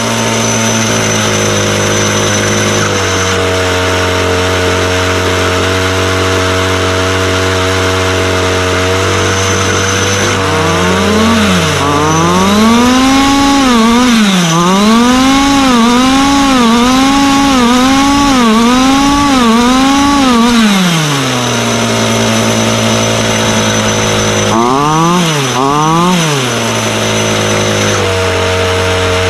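Chung Yang 26cc two-stroke gas engine of a 1/5-scale RC car idling steadily. About a third of the way in it is revved up and down about once a second for several seconds, then drops back to idle, with two quick revs near the end. This is the throttle response being tried after the carburettor needles were retuned to stop it bogging on acceleration.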